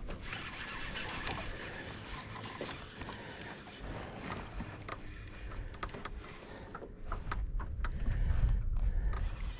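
Wind and water noise around a fishing boat as a fish is reeled in on a baitcasting reel. A run of sharp knocks starts about five seconds in, and a heavy wind rumble on the microphone builds from about seven seconds in.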